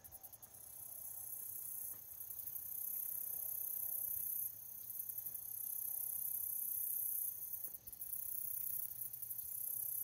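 High-pitched insect chorus trilling in fast pulses, swelling and dropping away in waves every two to three seconds.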